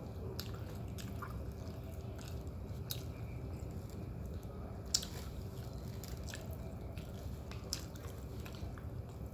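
Roti prata being torn apart by hand on a paper wrapper and chewed, with scattered soft crackles and clicks and one sharper click about five seconds in, over a steady low hum.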